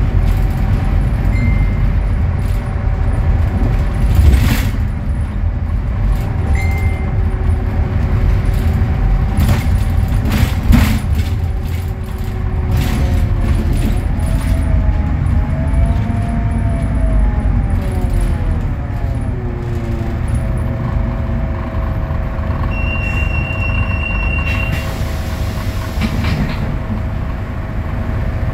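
Street traffic around an idling Scania K320UA articulated diesel bus, with a steady engine hum. There are two sharp knocks, a few seconds apart early on, and a vehicle engine whose pitch rises and falls midway. A short hiss of air comes near the end.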